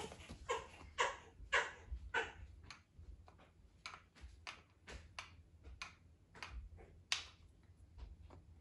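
Small decorations handled on a wooden shelf: a run of light, irregular clicks and rustles, about two a second, louder in the first couple of seconds.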